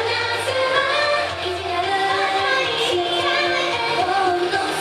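Female idol vocals singing a Japanese pop song live into handheld microphones over loud pop music accompaniment.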